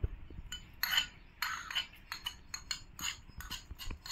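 Metal spoon scraping and clinking against a small ceramic plate and the rim of a metal kadhai as chopped nuts are pushed off the plate: a quick, irregular run of light clicks and scrapes.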